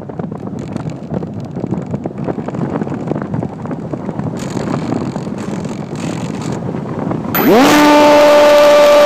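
Rushing wind over the microphone of a phone riding on a small RC plane in flight. About seven seconds in comes a sharp click as the plane comes down in snow. Then the plane's motor and propeller rise quickly in pitch and hold a loud, steady whine.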